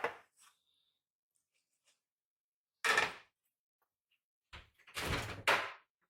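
Several separate knocks and clatters of household handling. One comes at the start, another about three seconds in, and a longer double clatter near the end.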